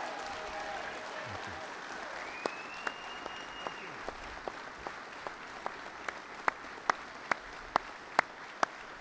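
Crowd of police officers applauding steadily, with one man's claps close to the podium microphone standing out on top: sharp, evenly paced claps about two and a half a second, starting a couple of seconds in and growing louder toward the end.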